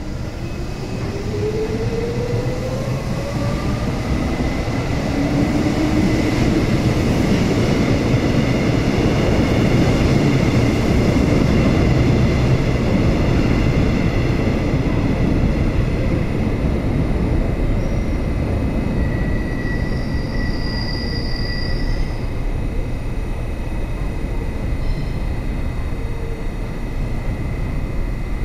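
Busan Metro Class 1000 electric train pulling into an underground station platform: a rising whine near the start, then a loud rumble of wheels on rail that is loudest about ten seconds in and then eases.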